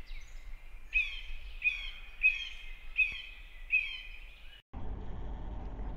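Bird calls: a short chirp repeated about six times, roughly two-thirds of a second apart, each a quick falling whistle that settles on a steady note. After a brief break it gives way to a steady low background hum and hiss.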